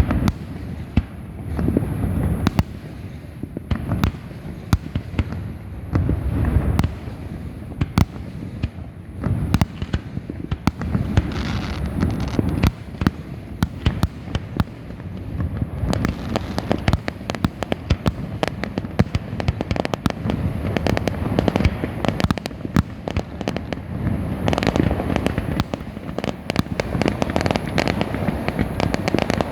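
Fireworks going off continuously: many sharp bangs and crackles over a deep booming rumble, with louder swells every few seconds.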